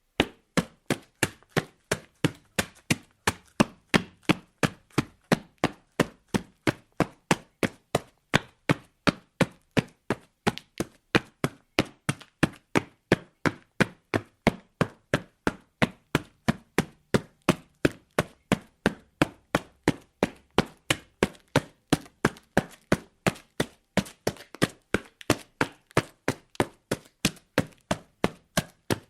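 Footsteps of a person running on concrete: quick, evenly spaced footfalls in a steady rhythm.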